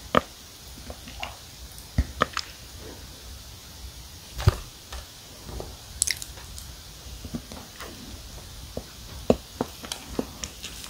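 Close-miked eating of a soft s'mores cookie loaded with marshmallow: the cookie is torn apart and chewed, giving scattered sharp clicks and sticky, crumbly sounds at irregular intervals.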